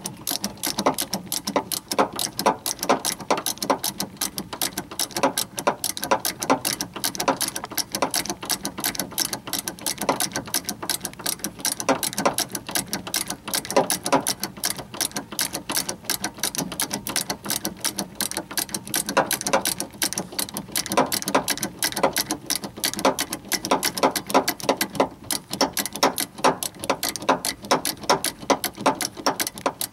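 Hand ratchet with a 14 mm socket clicking rapidly in quick, short back-and-forth swings on the rear stabilizer link's upper nut. The stubborn nut is slowly backing off.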